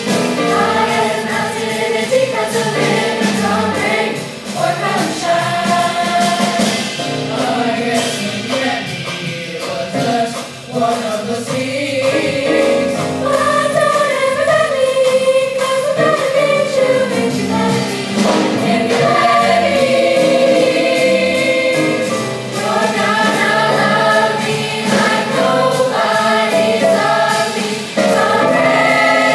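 Middle school jazz choir singing a vocal jazz arrangement in several-part harmony through handheld microphones, with brief breaks between phrases.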